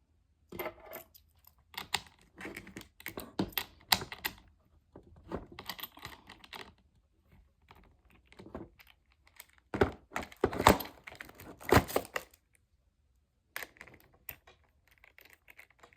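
Hands working on a mini cordless chainsaw: irregular bunches of plastic and metal clicks, rattles and knocks as its parts are handled, with the loudest knocks about ten to twelve seconds in.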